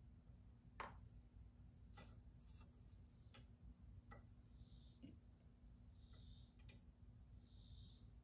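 Near silence: room tone with a faint steady hum, a few faint light clicks and soft hissy puffs about every second and a half.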